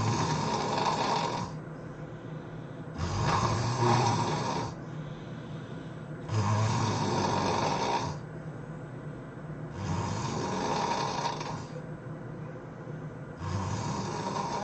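A person snoring loudly in sleep, one snore about every three and a half seconds, five in all, each lasting under two seconds, with quieter gaps between.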